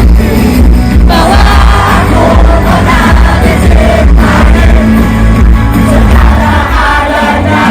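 Loud pop music with singing over a heavy bass.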